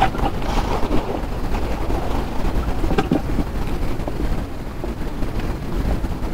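Wind buffeting the camera's microphone: a steady low rumble, with a light tap about three seconds in.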